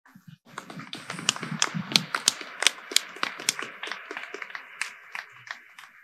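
A crowd moving and settling into seats: irregular sharp knocks and clicks over a steady shuffling rustle, fitting footsteps and folding chairs.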